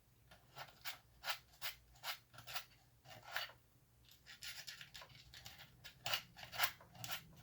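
Short, quick scraping strokes, roughly two a second with a brief pause midway, as corrosion debris is scraped out of a cuckoo clock's battery compartment around the corroded battery contact.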